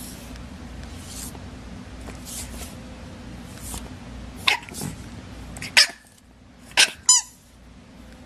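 A pet animal giving four short, sharp calls in the second half, the loudest about six and seven seconds in, over a steady low hum.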